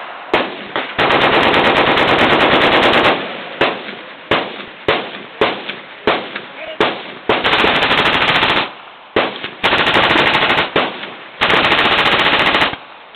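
Machine guns firing fully automatic on a shooting range: four long bursts of one to two seconds each, with single shots and short bursts scattered between them.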